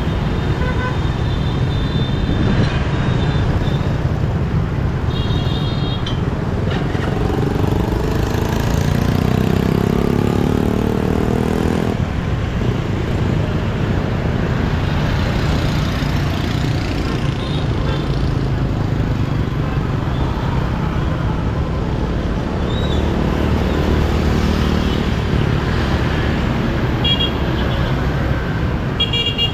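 Motorbike traffic on a city street: steady engine and wind rumble, with an engine rising in pitch for a few seconds about eight seconds in. Short, high horn beeps sound several times.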